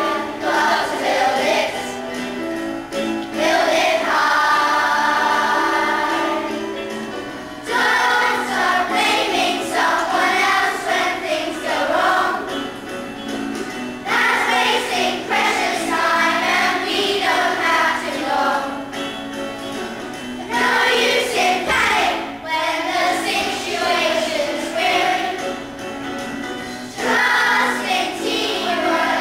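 A group of children singing a song together over a musical accompaniment, in phrases of a few seconds each.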